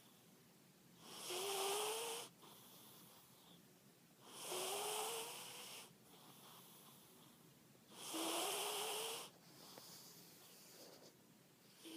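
A domestic cat snoring in its sleep: three loud snores about three to four seconds apart, each carrying a whistling tone that rises in pitch, with softer breaths between them.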